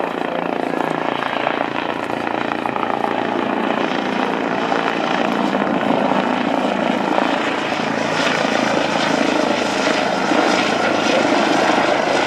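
Swiss Air Force Eurocopter EC635 helicopter flying close by at low height, its rotor and turbine engines running steadily and getting a little louder in the second half.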